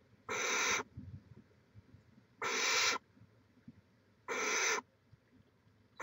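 Young barn owls giving raspy begging hisses, each about half a second long and repeated about every two seconds: three in a row, with a fourth starting at the very end.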